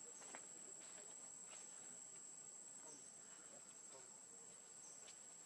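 Faint, steady, high-pitched insect drone held on one tone, with a few soft clicks scattered through it.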